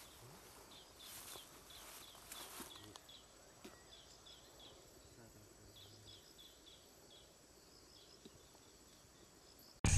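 Faint natural ambience with a long run of short, high chirps repeated about three times a second. A sudden loud sound cuts in right at the end.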